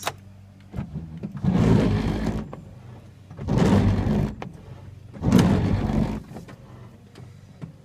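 Windshield wipers of a 1976 Chevrolet El Camino sweeping across the glass three times, with the engine off, each pass a swish about a second long, under a faint steady hum.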